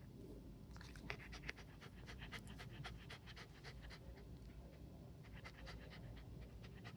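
A corgi panting quickly and faintly, the anxious panting of a dog frightened by noises outside.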